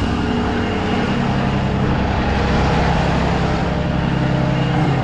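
Peterbilt rollback tow truck's diesel engine idling steadily.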